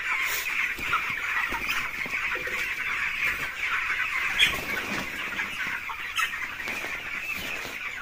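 A large flock of young broiler chickens cheeping continuously, many high calls overlapping into a constant chorus.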